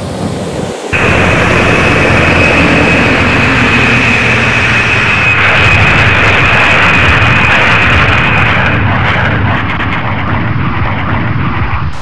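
Jet aircraft engines: a loud, even roar with a steady high whine that cuts in abruptly about a second in. The whine drops away about three-quarters of the way through while the roar carries on.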